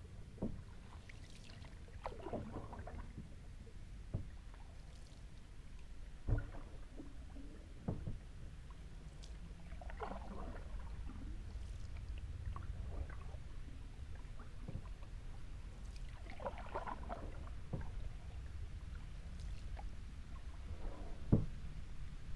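Kayak paddle blades dipping into calm water in slow, gentle splashes every few seconds, with a few sharp knocks, the loudest about six seconds in and near the end.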